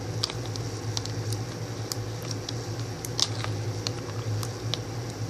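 Freshly mixed glue and contact-lens-solution slime being squished and worked by hand, giving scattered small wet squelching clicks. The slime is still watery and not fully set. A steady low hum runs underneath.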